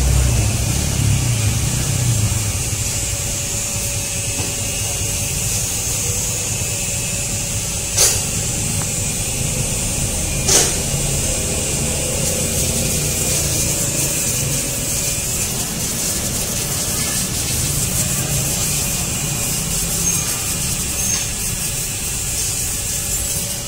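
Hand work with an Allen key on the stator bolts of a Honda Vario scooter engine: light metal clicks and scraping, with two sharper clicks about eight and ten and a half seconds in, over a steady hiss and low rumble.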